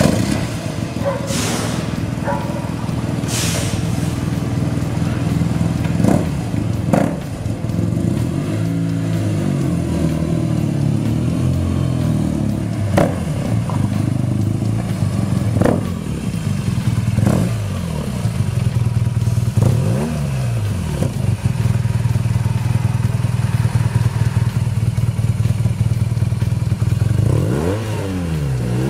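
Large adventure motorcycle with a carbon-fibre aftermarket silencer running: a steady engine note with several throttle blips that rise and fall in pitch, revving up again near the end, with a few sharp knocks along the way.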